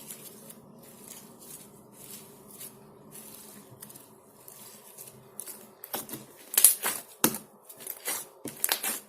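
Clear slime, freshly thickened with activator, being worked in the hands: soft sticky crackling, then from about six seconds in a run of loud sharp clicks and crackles as it is pressed and pulled. The clicking is the sign that the slime has firmed up and no longer sticks.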